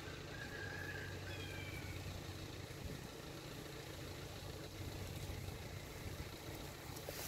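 An engine idling, a faint steady low hum. A few faint high chirps sound about a second in.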